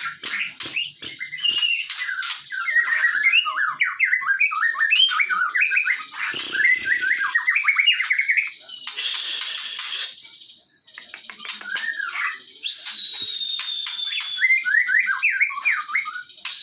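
Young white-rumped shama, about four months old, singing in rapid runs of short chirping notes, with a falling whistle near the end.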